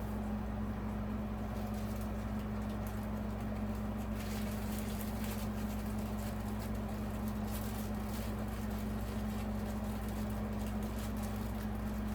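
1993 Encon Casanova ceiling fan running with four blades: a steady motor hum, with faint irregular light clicks from about four seconds in.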